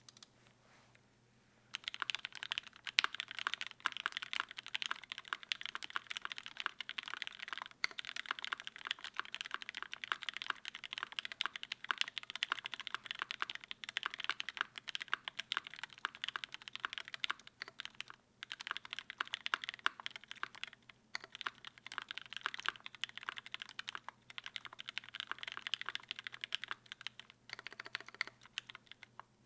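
Fast continuous typing on a Cannonkeys Savage65 mechanical keyboard with lubed Gateron Yellow linear switches (UHMWPE stems), FR4 plate and GMK Bento keycaps: a dense stream of keystroke clacks. It starts about two seconds in, after a moment of quiet, and pauses briefly a couple of times.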